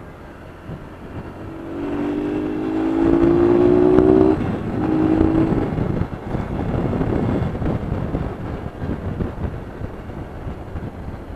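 Motorcycle engine accelerating: its note climbs for a couple of seconds, drops off at a gear change a little past four seconds in, then holds briefly in the next gear. Wind and road noise rush over the rest.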